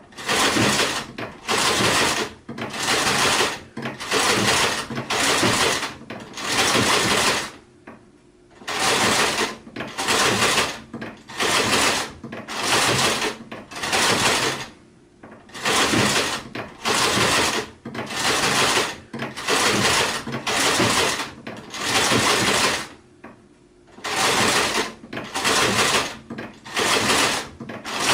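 Sewing machine stitching in short runs of about a second each, stopping and starting again over and over, with a few longer pauses between runs.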